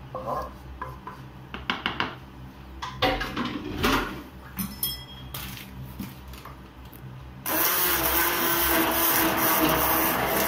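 A few light knocks and clicks, then about seven and a half seconds in a hand-held immersion blender switches on and runs steadily in a plastic jug, puréeing a boletus mushroom cream sauce.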